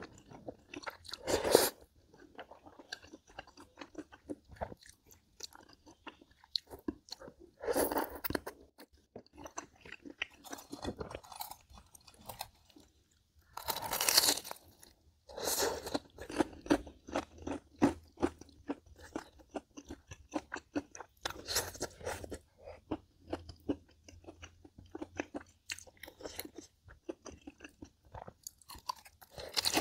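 Close-miked chewing of crisp food: a steady run of small crunches, broken now and then by louder bites.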